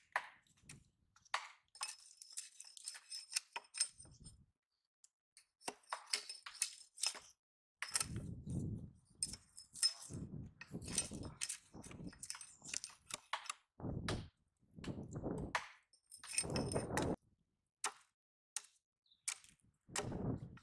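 Irregular knocks, thuds and clinks, with several heavier dull thumps spaced a few seconds apart.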